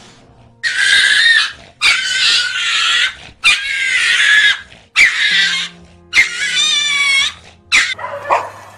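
An animal giving about six loud, high-pitched squealing cries in quick succession, each around a second long and wavering in pitch, over faint background music.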